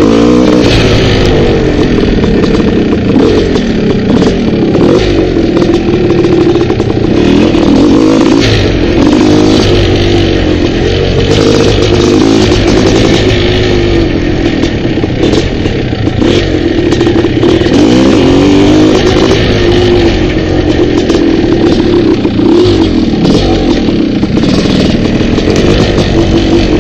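Dirt bike engine running under load on a rough trail, its pitch rising and falling every second or two as the throttle opens and closes, with scattered knocks and rattles from the bike over the bumps.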